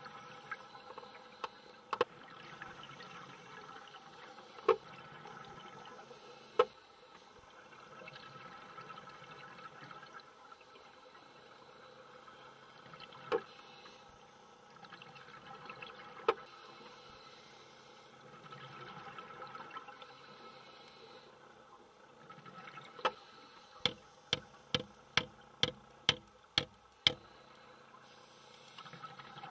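Underwater hiss and bubbling from divers' scuba regulators, broken by scattered sharp clicks. Near the end comes a quick run of about nine sharp strikes, some three a second: a nail being hammered into the reef rock to anchor a coral fragment.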